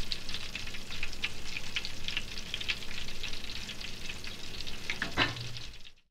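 Breaded oysters deep-frying in lard, a dense steady crackle of small pops, with one louder pop about five seconds in. The sound fades out near the end.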